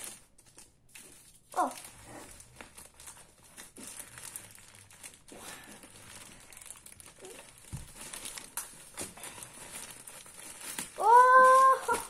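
Thin plastic bag crinkling and rustling with scattered crackles as it is tugged off a boxed appliance. A brief falling voice sound comes about a second and a half in, and a loud, steady held vocal note sounds near the end.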